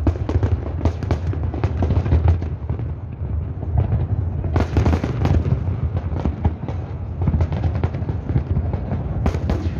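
Large aerial fireworks display: shells bursting in quick succession with dense crackling over a continuous low rumble. A louder cluster of bangs comes about halfway through.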